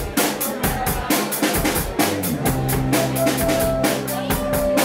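Live indie rock band playing: drum kit keeping a steady, fast beat under electric bass and guitar, with held notes, likely keyboard, coming in about two seconds in.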